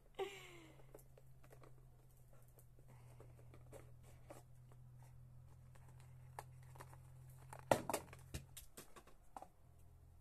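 Small cardboard earphone box being handled and worked open: scattered light clicks and taps, with a louder cluster of clicks a little before the end, over a faint steady low hum.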